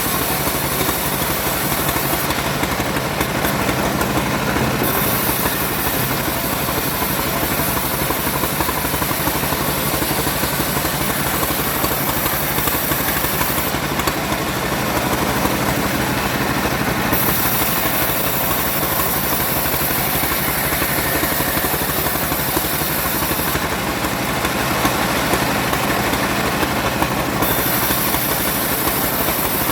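Engine-powered wood saw running continuously at a steady pitch, with a dense hiss over the engine hum that eases slightly in the top end three times.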